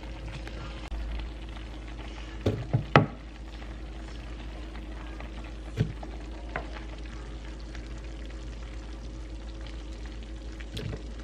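Wooden spoon scraping and knocking in a slow cooker's crock as cooked potato chunks are scooped out and dropped into a plastic blender jar: a quick cluster of knocks about two to three seconds in, the loudest near three seconds, then a few single taps, over a steady hum.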